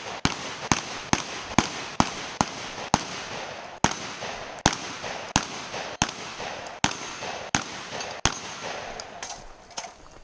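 Competition gunfire from a long gun: a rapid string of about fourteen sharp shots, roughly two a second with a few longer gaps, then a few fainter cracks near the end.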